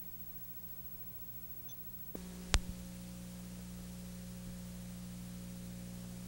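Steady electrical mains hum with faint hiss on the audio track of a VHS recording, with no programme sound. About two seconds in, the hum gets louder and fuller, and a single sharp click follows half a second later.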